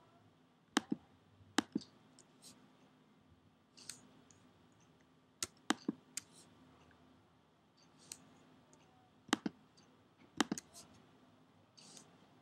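Computer mouse and keyboard clicking: scattered sharp clicks at irregular intervals, several in quick pairs, over a faint steady hum.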